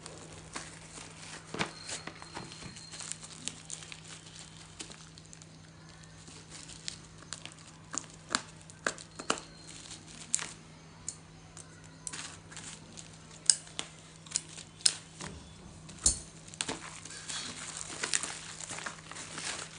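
Delivery packaging being crinkled and torn open to take out a phone's retail box, with scattered sharp crackles and clicks over a steady low hum.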